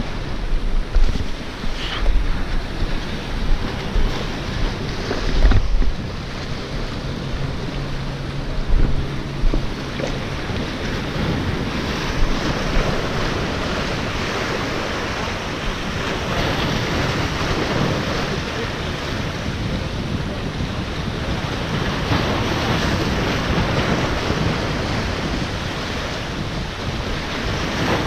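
Ocean surf washing steadily, with wind buffeting the microphone in low gusty thumps that are heaviest in roughly the first third.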